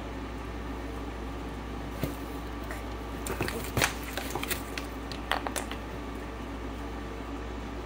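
Handling noises as a tokay gecko is lifted out of a cardboard shipping box: a single knock about two seconds in, then a run of short clicks and rustles over the next few seconds, over a steady low hum.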